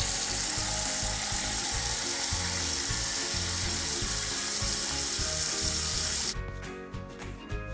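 Water running steadily from a tap, a hissing rush that shuts off suddenly about six seconds in, over background music.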